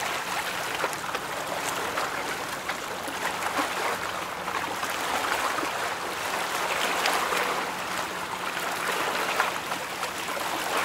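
Steady rushing and splashing of choppy river water churned by passing ships' hulls, with a faint steady low hum underneath.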